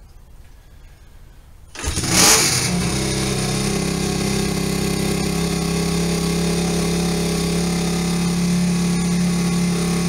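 Icebear Champion CT70 clone's single-cylinder four-stroke engine, just bored out to 141cc with a race head and VM26 carburetor, catching about two seconds in with a brief rev and then idling steadily. It is the first start since the big-bore rebuild, with the carburetor not yet adjusted.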